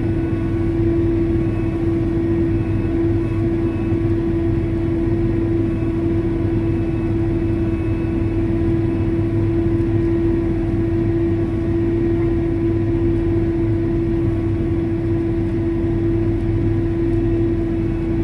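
Diesel engine of a farm sprayer rig running steadily under load, heard from inside the closed cab: a constant low hum with a steady whine riding over it.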